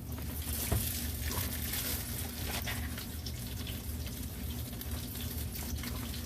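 Panko-coated trout frying in hot oil in a pan, just turned over: a steady sizzle with scattered pops, over a steady low hum.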